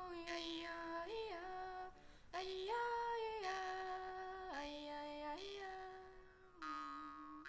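Slow, wordless melody in a high female singing voice, held on long notes that glide from one pitch to the next, with a brief pause in the middle. A brighter-toned note enters near the end.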